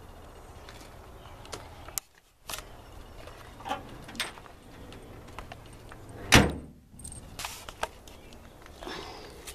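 Door of a 1957 Chevy 4x4 pickup shut with one loud, heavy thud about six seconds in, among scattered light clicks and knocks of handling on the truck.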